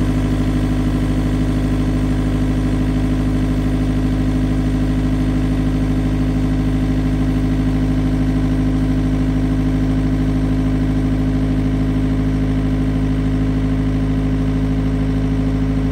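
Diesel engine of an Elgi PG 200 portable air compressor running at a steady, unchanging speed.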